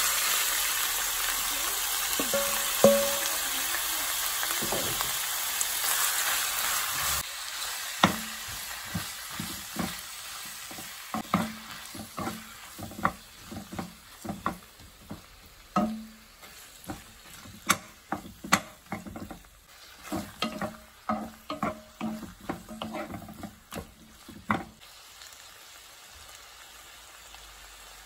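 Raw squid tipped into hot oil and garlic in a nonstick wok, sizzling loudly for the first several seconds. Then a utensil knocks and scrapes against the wok in quick, irregular strokes as the squid is stir-fried over a softer sizzle, the strokes stopping a few seconds before the end.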